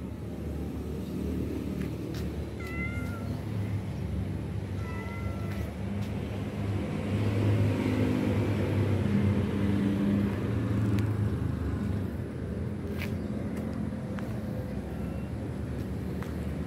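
Stray cats meowing: two short, thin meows a couple of seconds apart, over a low engine rumble that swells about halfway through.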